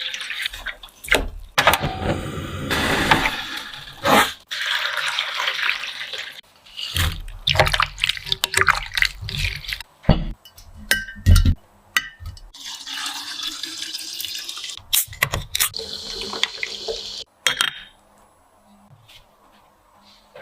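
Water running from a kitchen tap and splashing in a sink, in stretches that start and stop abruptly, with sharp knocks and clatter of food preparation in between.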